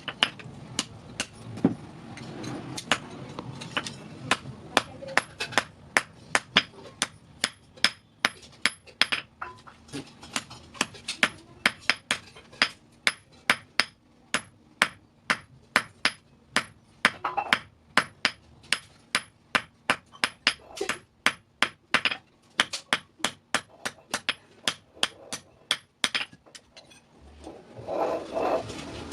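Blacksmith's hammer striking metal on an anvil: a long, steady run of sharp, ringing blows, about three a second, as the scissor steel is forged.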